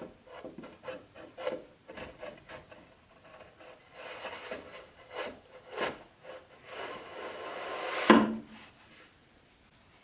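Wooden parts of an IKEA FLISAT doll house being handled and pushed into holes: wood rubbing and scraping on wood with scattered light knocks. A longer scrape builds up and ends in a sharp, loud knock about eight seconds in.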